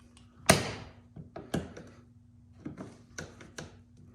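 Pliers clicking and knocking against the plastic of a Ridgid toolbox while prying at a tight, stuck part, a sharp click about half a second in followed by about five lighter ones.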